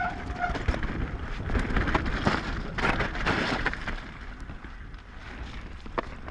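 Mountain bike riding fast down a wet, muddy trail: wind buffeting the camera microphone and tyres hissing through the mud, with sharp clicks and rattles from the bike, loudest in the first half and easing off after about four seconds. A brief high brake squeal fades out right at the start.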